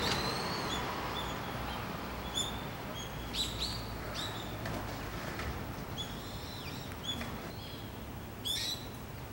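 Small birds chirping: scattered short calls and quick downward chirps, with a louder burst of chirps near the end, over a steady low background rumble.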